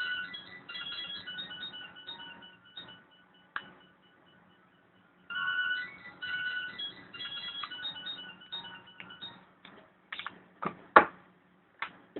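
A tinny electronic melody of simple repeating notes, like a ringtone or plain background music. It breaks off about three seconds in and starts again about five seconds in. Near the end come a few sharp clicks, one of them loud.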